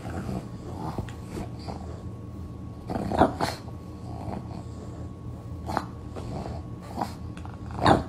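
Pug making short grunting, growling noises several times, loudest about three seconds in and near the end.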